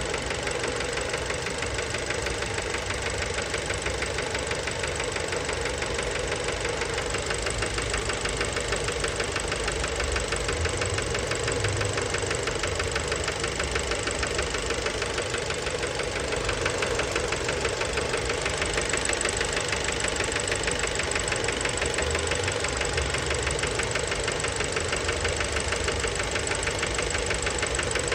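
Fiat Bravo's 1.4 T-Jet turbocharged four-cylinder petrol engine running steadily with a fast, even knocking rattle: the sign of worn connecting-rod bearings.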